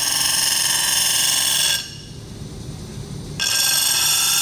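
Sheet glass pressed against the spinning, water-fed grinding wheel of a Mercer engraving lathe, engraving into it: a loud, high-pitched whining grind with many overtones. It comes in two stretches of about two seconds each, with a short break between them as the glass is lifted off the wheel.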